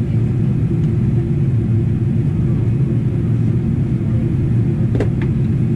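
Steady low rumble of cabin noise inside a Boeing 777-300ER on its descent, the GE90 engines and airflow heard from a window seat. A brief click about five seconds in.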